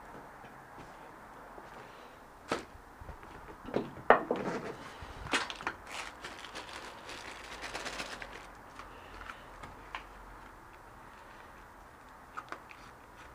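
Scattered sharp clicks and knocks of parts and tools being handled while a spin bike is being taken apart, with a run of small crackling clicks a little past the middle.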